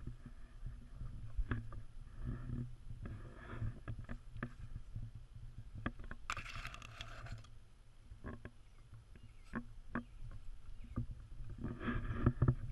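Shichon puppy rolling and scrambling in grass close to the microphone: rustling and small scratching sounds over a steady low wind rumble, with a louder rustle a little after six seconds in.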